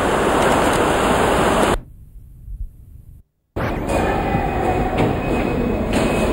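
A loud, even rush of noise that drops away a little under two seconds in, then a short dead gap at an edit; from about three and a half seconds, a train's steady rumble with a faint high whine.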